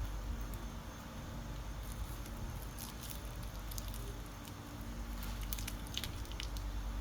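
Baby monkey chewing a cicada: scattered small crunching clicks and crackles, thickest in the second half, over a steady low rumble.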